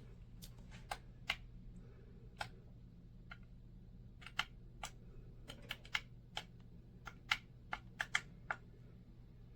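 A series of light, sharp clicks at irregular intervals, about twenty in all and thickest in the second half, over a faint steady low hum.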